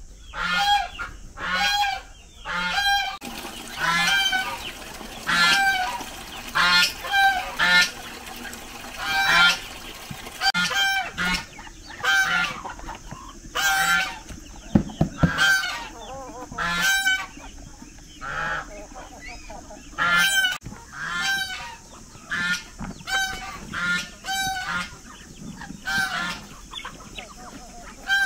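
Farm poultry calling over and over, a loud call about once a second.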